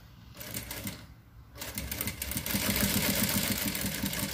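Jack industrial sewing machine stitching satin bias binding onto tulle: a short burst of fast stitching, a brief stop, then a longer steady run of rapid stitches.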